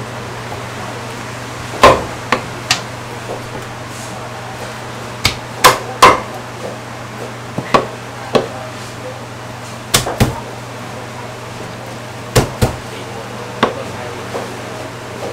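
Heavy Chinese cleaver chopping through roast poultry, bone and all, onto a thick wooden chopping block: about a dozen sharp chops, mostly in quick pairs or threes with pauses between, over a steady low hum.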